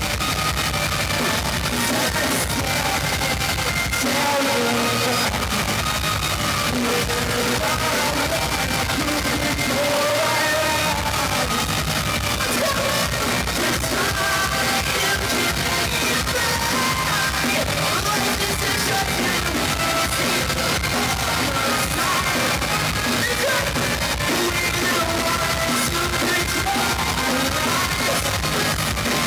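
Electronicore band playing live through a venue PA, heard from within the crowd: loud rock music with sung and shouted vocals.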